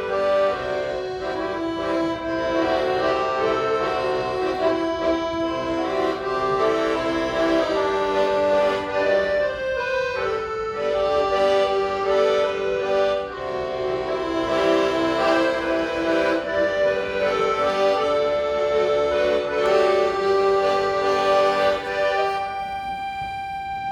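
Live instrumental music: a melody played over held chords, thinning to one long held note near the end.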